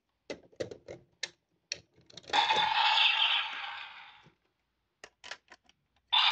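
Plastic clicks as a Vistamp is pushed and locked into a DX Revice Driver toy belt, followed by a loud, noisy electronic sound effect from the driver's small speaker lasting about two seconds. A second loud burst of the toy's sound starts just before the end.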